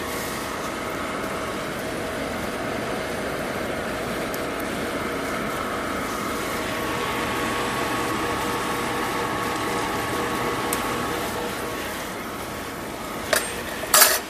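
Battered plantain pieces sizzling steadily in hot oil in a wok, over a faint steady hum. Two sharp clicks near the end.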